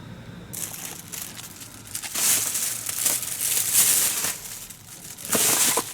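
Crinkling and rustling, like something crinkly being handled, in uneven bursts: loudest from about two to four seconds in, with a short burst again near the end.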